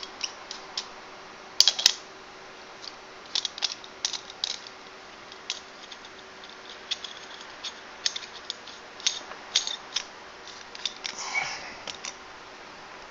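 Metal parts of a Congestus tube mod being handled and screwed together: irregular light metallic clicks and clinks, with two sharper clicks about a second and a half in.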